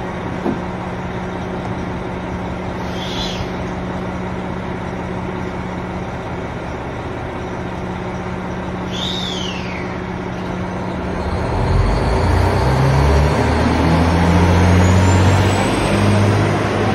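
JR Hokkaido KiHa 261 series diesel limited express idling with a steady hum, then its diesel engines throttling up about eleven seconds in as the train pulls away, louder and deeper, with a rising whine. Two short high falling chirps sound in the first half.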